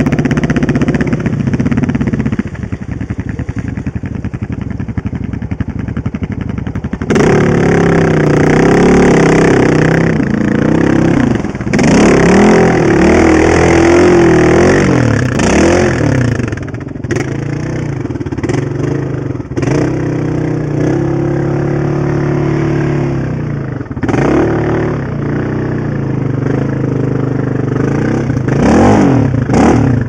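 Honda TRX700XX sport quad's single-cylinder engine running at moderate revs for the first several seconds, then revved hard in repeated surges, its pitch climbing and falling.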